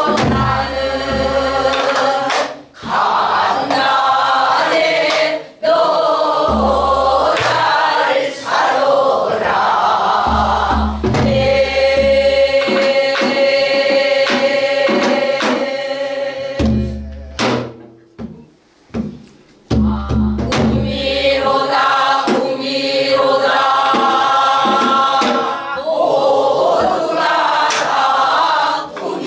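A mixed chorus of men and women singing a Namdo (southwestern Korean) folk song together in long, wavering held phrases, with a buk barrel drum beating deep strokes underneath.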